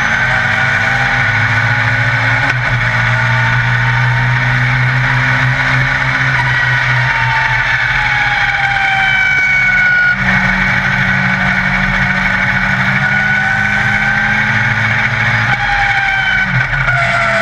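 Yamaha XJR1300 inline-four motorcycle engine of a Legend Car at racing speed, heard from inside the cockpit. The engine note rises and falls several times through the gears and corners, with a short drop about ten seconds in.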